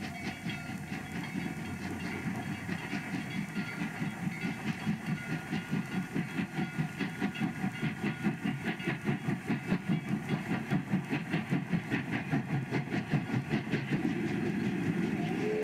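Steam train passing at speed, the locomotive and its coaches beating out a steady rhythm of about three beats a second that grows louder toward the middle.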